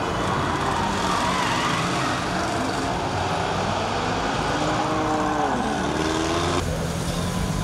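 Many car engines running together over a steady wash of traffic noise, with engines revving up and down a few times, most clearly about five seconds in. Near the end the sound shifts to a steadier low engine hum.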